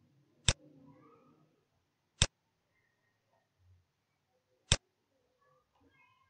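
Computer mouse button clicked three times, single sharp clicks spaced unevenly over a few seconds.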